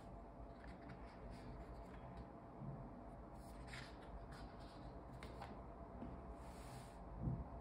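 Sketchbook pages being turned by hand: soft paper rustles and swishes, with a soft thump near the end.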